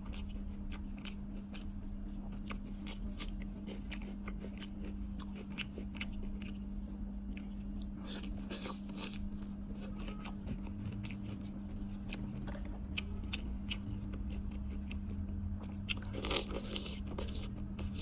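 Close-up crunching and chewing of seafood: many sharp crackles, with louder crunches about eight seconds in and again near the end, over a steady low hum.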